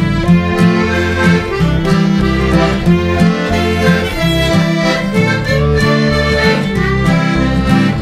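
Instrumental traditional folk music led by accordion, with a steady repeating bass line.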